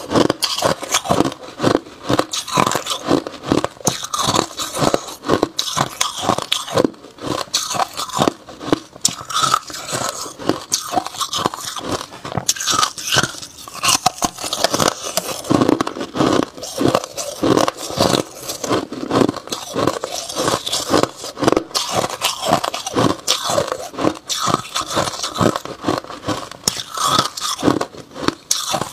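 Hard chunks of frosty white ice being bitten and chewed close to the microphone: a dense, continuous run of sharp crunches, several a second.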